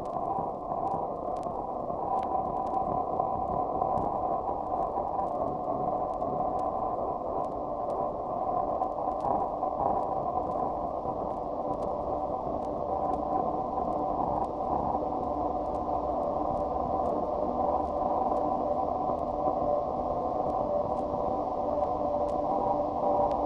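Ambient musique concrète recording: a steady, dense, muffled noise texture like radio static, with a few faint held tones inside it and sparse faint clicks.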